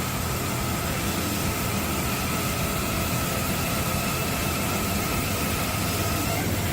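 A machine or engine running steadily under a rushing noise, with a low hum and a constant high whine that stops just before the end.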